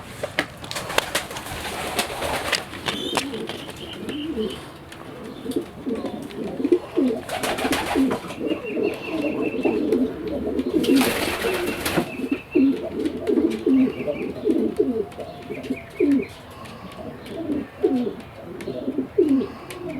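Domestic pigeons cooing, many short low coos overlapping one after another, with two brief bursts of rustling noise about eight and eleven seconds in.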